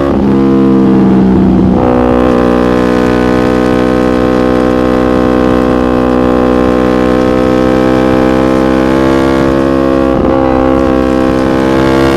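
Yamaha MT-25's parallel-twin engine running through a Shadux aftermarket racing exhaust, held at a steady raised speed. Its pitch shifts briefly near the start and again about ten seconds in.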